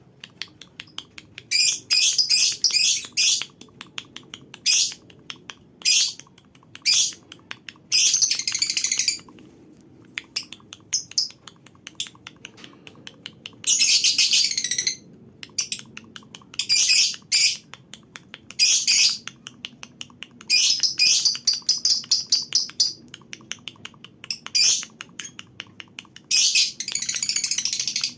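A colony of lovebirds calling, with long, rapid, high-pitched chattering trills (the 'ngekek') every few seconds and short sharp chirps in between.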